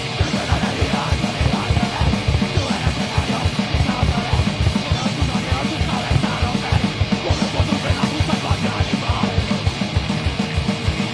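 A heavy metal band playing live: a fast, steady kick-drum beat under electric guitars and bass.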